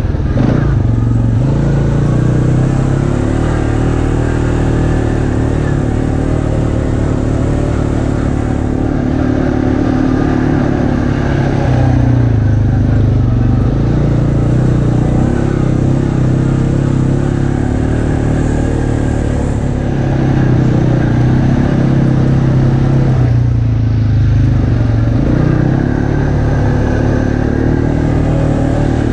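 ATV engine running steadily while riding, close up. Its pitch falls and climbs again a few times as the throttle is eased off and reapplied.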